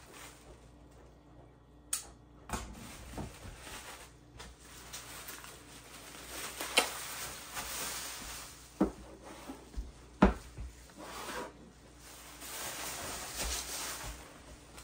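Plastic bubble wrap rustling and crinkling as it is pulled off a laser-cut wooden box, with a few sharp knocks as the box is handled on the wooden tabletop. Near the end the bubble wrap is crumpled up in the hands.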